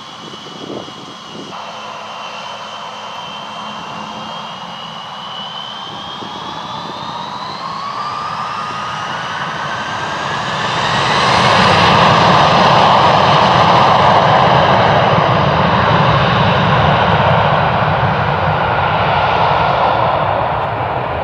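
Airbus A321 jet engines spooling up to takeoff thrust. A steady whine rises in pitch from about six seconds in, then a loud, steady jet roar takes over from about eleven seconds as the airliner starts its takeoff roll.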